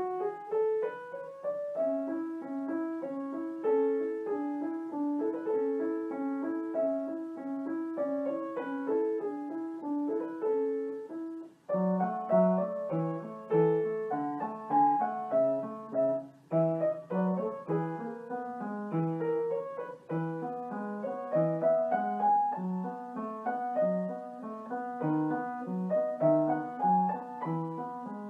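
Background piano music: a melody over a repeating broken-chord accompaniment, breaking off briefly about twelve seconds in and going on with a deeper bass line.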